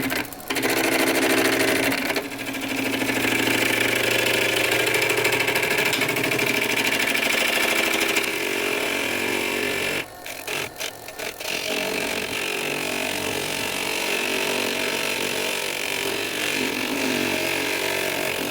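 Woodworking lathe spinning a driftwood-and-resin blank while a turning tool cuts into it, giving a steady shearing and whirring noise. The cutting breaks off briefly about ten seconds in, then carries on.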